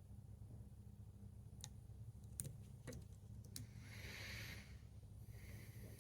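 Faint metallic clicks of a lever pick working inside a 10-lever Ingersoll padlock: four light ticks spread over about two seconds, followed by two soft hissing rustles.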